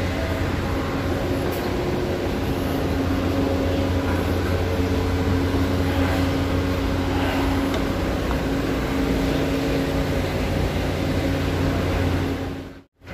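Steady loud drone of a car ferry's engines and machinery on its enclosed steel vehicle deck: a low hum with a few steady tones above it. It cuts out briefly near the end.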